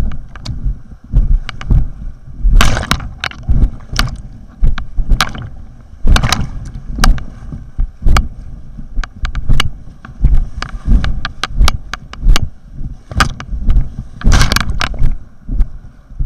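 River water splashing around an inflatable kayak paddled through rapids: irregular sharp splashes and strokes, several a second at times, over a constant low rumbling buffet of water and wind on a helmet-mounted camera's microphone.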